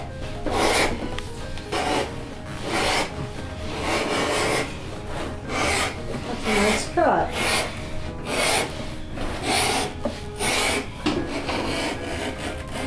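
Thick cowhide being sliced into a belt strip with a wooden strap cutter: a series of uneven rasping strokes as the blade is drawn through the leather and the strip drags and rubs across the hide, with a short rising squeak about halfway through.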